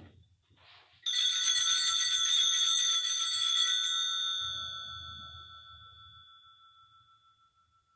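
Altar bell (sanctus bell) ringing at the elevation of the consecrated host: bright, high ringing tones with many overtones start suddenly about a second in, stay strong for about three seconds, then fade slowly over the next several seconds.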